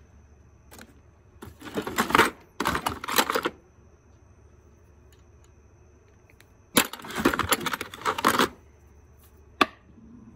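Metal hand tools clattering and clinking together as a hand rummages for a wrench on a workbench: three bursts of rattling, with single sharp clicks in between.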